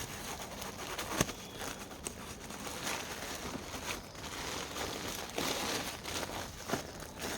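Rustling and crinkling of jute sack packaging being pulled off and handled, with a sharp tick about a second in.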